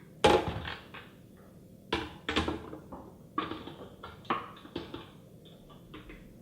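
Knocking and clattering of a utensil against plastic food processor and blender containers as a thick nut-cheese mixture is scraped and transferred: a sharp knock about a third of a second in, then scattered smaller knocks.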